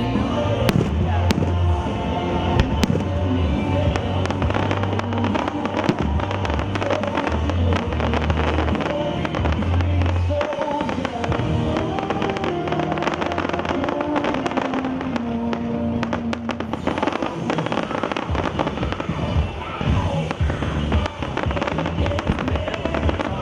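Aerial fireworks shells bursting and crackling in rapid succession, over music playing through loudspeakers. The bass-heavy music is strongest for the first ten seconds; after that the bangs and crackle dominate.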